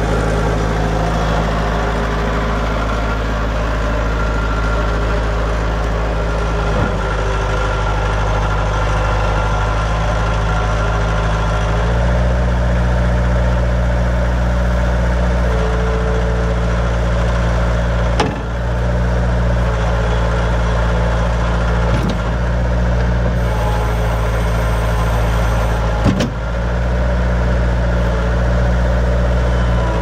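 Bobcat 751 skid steer's four-cylinder diesel engine running steadily. About twelve seconds in, the engine note steps up and holds there. A few sharp knocks come through it.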